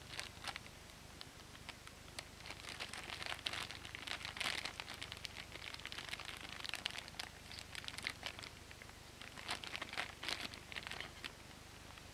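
Thin clear plastic bag crinkling as it is handled and turned with a small wooden toy boxcar inside. The crackles come irregularly, thickest about three to five seconds in and again around ten seconds.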